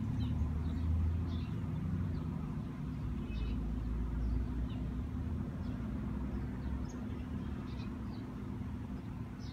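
Steady low background rumble with a faint hum, and faint short high chirps scattered through it.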